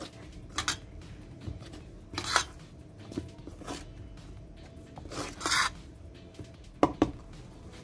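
Metal spoon scraping and knocking against a stainless steel bowl while stirring water into flour for dumpling dough. It comes as separate strokes, two longer rasping scrapes among short clinks, with two sharp clinks near the end.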